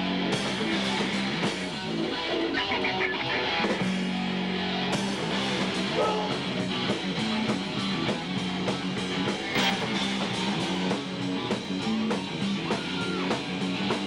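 Live rock band playing: electric guitar over a drum kit, with a steady beat of drum and cymbal hits that becomes more prominent about five seconds in.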